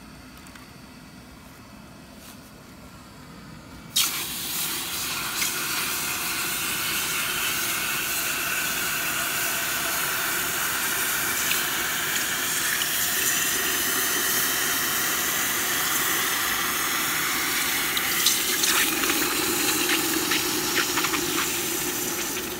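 Hot metal muffin tin of freshly cast aluminum ingots quenched in a bucket of water: a sudden loud hiss of steam starts about four seconds in and goes on steadily as the water boils against the hot metal, with a few crackles near the end.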